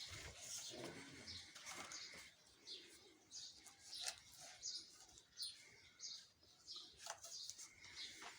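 Faint birds chirping: short, high calls repeating irregularly, several a second at times.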